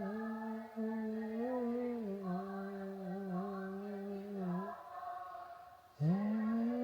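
A voice humming or chanting in long held notes. One steady note is held for nearly five seconds, dropping slightly in pitch about two seconds in, then fades out, and a new note starts about six seconds in.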